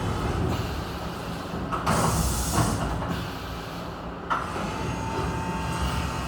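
UGINT UT650 vertical machining centre at work: a steady machine hum, a loud hissing burst about two seconds in, a sharp knock just after four seconds, then a steady high whine.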